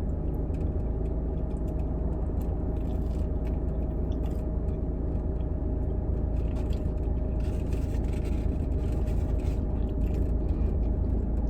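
Steady low rumble of an idling car heard from inside the cabin, with chewing and small clicks and rustles from someone eating a sandwich.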